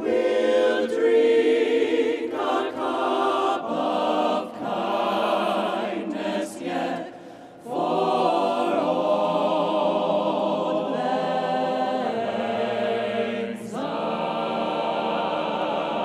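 Mixed choir of men's and women's voices singing together in phrases, with a brief break about seven and a half seconds in.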